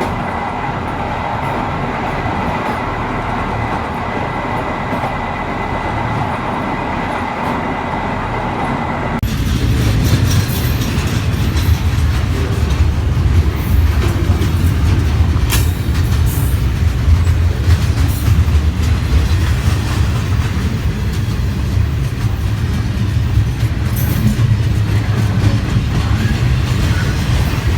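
Railway train running on track: steady rolling noise with a thin, high steady whine. About nine seconds in, the sound cuts abruptly to a louder, deep rumble with scattered clicks from the wheels on the rails.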